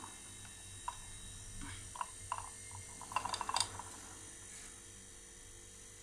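Refrigerator compressor running with a steady hum during refrigerant charging. Over it come a few light clicks and, about three seconds in, a brief clatter of the brass manifold gauge set being handled.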